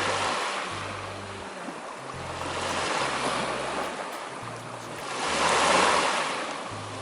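Sea waves washing onto a shore: three surges of surf that rise and fall, the loudest near the end.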